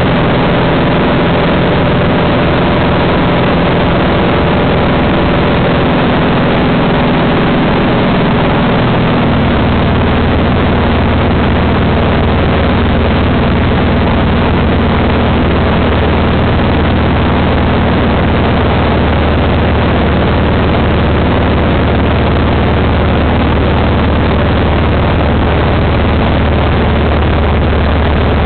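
Cessna light aircraft's engine and propeller droning steadily, heard from inside the cabin. The low engine note changes about nine seconds in.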